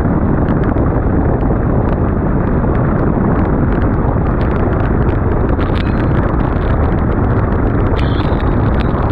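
Loud, steady rush of wind and engine noise from a light bush plane flying just above water. A few seconds in, its big tyres touch down and skim the surface, adding the crackling hiss of spray.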